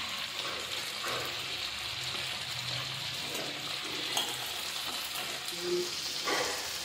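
Oil sizzling steadily in a kadai as cut potato and brinjal pieces fry, with a spatula stirring and knocking against the pan a couple of times.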